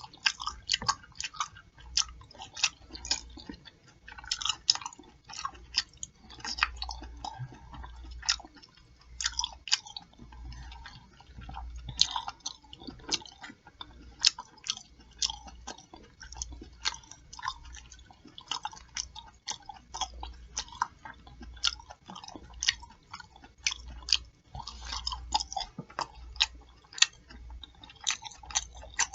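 Close-miked open-mouthed chewing of a pork chop meal, with a continuous, irregular run of wet lip-smacking clicks, several a second.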